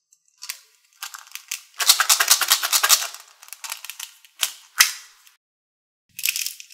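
Small hard red balls rattling inside a clear plastic cup as it is shaken and handled, a dense burst of clicking about two seconds in, with one sharp click near the middle as the snap-on lid comes off.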